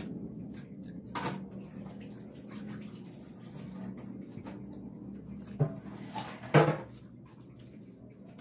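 Eating sounds from a bowl of sotanghon glass-noodle soup: the noodles slurped into the mouth and chewed, with a few short, sharper slurps or clicks, the loudest about six and a half seconds in, over a steady low hum.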